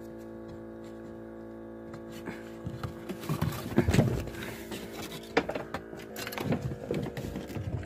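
Irregular knocks, scrapes and rustling as a phone and a cat move about in a cramped gap by a wall. They start a couple of seconds in and are loudest around the middle, over a steady hum of several held tones.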